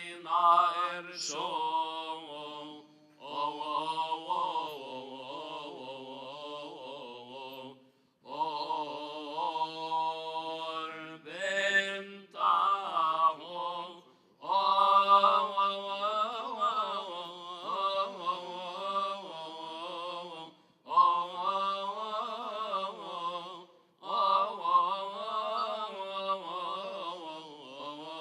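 Coptic liturgical chant: a voice singing long, drawn-out melismatic phrases with slow, wavering pitch glides and short breaths between them, over a steady low held tone.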